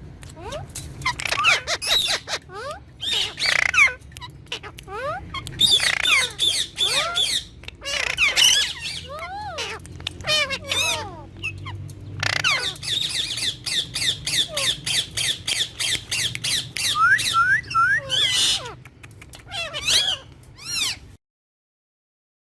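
Rose-ringed (Indian ringneck) parakeet chattering and squawking: rapid strings of sharp chirps, clicks and gliding whistled calls, which stop abruptly near the end.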